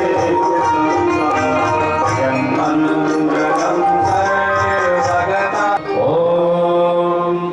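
Indian devotional music: a sustained voice chanting or singing over tabla, with a brief break about six seconds in.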